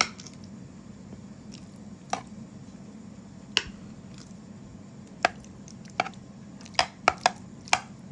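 A utensil knocking and clicking against the plastic bowl of a small food processor while ricotta is scooped in. The sharp clicks come singly at first, then several close together near the end.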